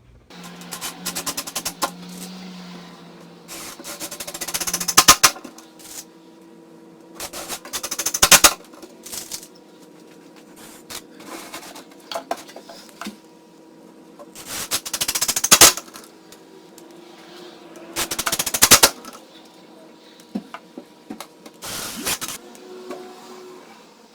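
Power screwdriver driving Kreg screws into a thin board, in about six bursts of a second or so, each building up and stopping sharply as the screw seats, with a rapid rattling hammer.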